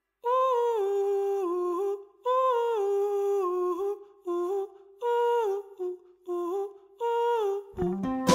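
Soundtrack music: a wordless hummed melody in short phrases, with a fuller band including guitar coming in just before the end.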